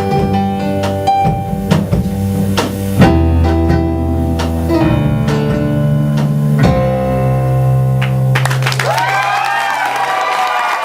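Live guitar-led song playing out, ending on a held low chord about eight seconds in, after which the audience starts cheering and applauding.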